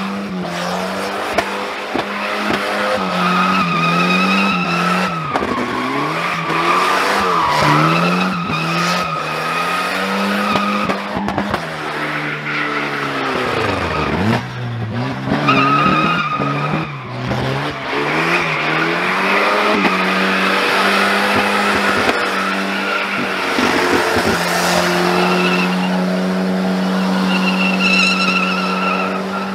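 Volvo 940 doing a burnout in tyre smoke: the engine is held at high revs while the rear tyres squeal and skid. The revs rise and fall repeatedly, drop sharply about halfway through, then climb back and hold steady near the end.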